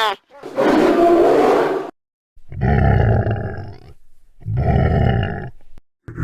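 Creature breathing sound effect: three loud, rough, roar-like breaths, each about a second or so long with short pauses between. The first is hissier; the later two carry a deep, growling rumble.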